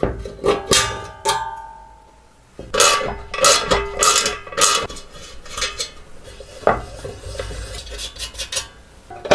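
Sharp metal clinks and clanks, each with a short ringing tone, coming in uneven clusters: metal parts being tapped and handled.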